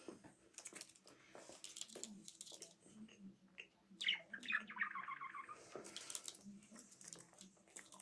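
Budgerigar making a brief chattering call about four seconds in, a quick run of notes falling in pitch over about a second and a half, among scattered soft clicks and taps.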